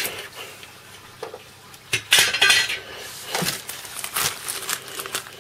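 Parts and packing being handled inside a table saw's box: light clinks and knocks with a scraping rustle about two seconds in.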